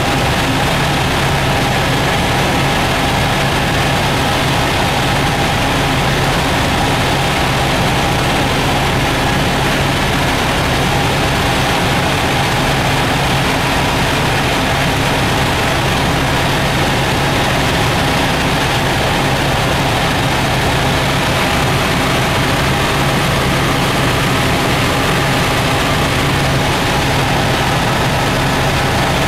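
Helicopter in flight heard from inside the cabin: the engine and main rotor make a loud, unbroken drone with a steady low hum and a higher whine held at one pitch.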